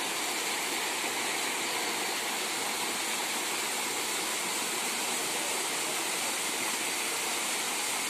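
Waterfall spilling in thin streams down sloping rock slabs: a steady rush of falling water.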